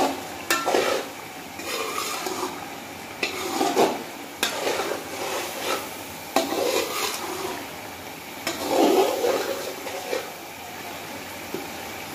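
A metal spoon stirring and scraping beef masala around a large aluminium pot as it fries, with irregular clinks and scrapes of the spoon against the pot over the sizzle of the meat. This is the bhuna stage, where the meat and tomatoes are fried down.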